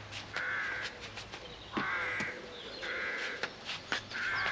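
A crow cawing over and over, four harsh caws about a second apart, with a few light clicks underneath.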